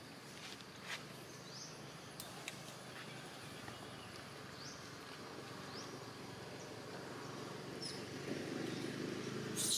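Outdoor ambience: a steady background hiss over a low steady hum, with short rising chirps every few seconds and a few sharp clicks. A louder sharp crackle comes right at the end.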